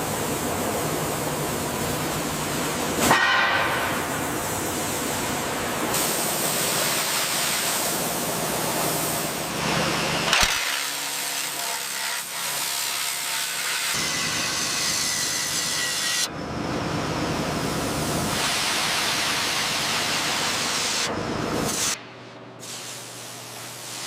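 Workshop tool noise on steel: a loud, steady hissing and grinding-type racket that changes abruptly several times, as in a series of short cuts, with a sharper burst about three seconds in and a drop in level near the end.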